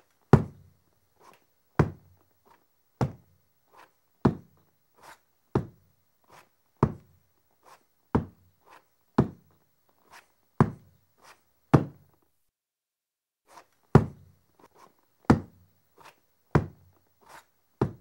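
Footsteps of a person walking with a prosthetic leg, in an uneven gait: a heavy step with a deep knock alternates with a lighter tap, about one pair every 1.3 seconds. The steps stop for about a second and a half around two-thirds through, then carry on.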